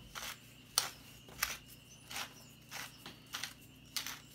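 Wooden pepper mill grinding peppercorns, a short crunchy rasp with each twist, about two twists a second.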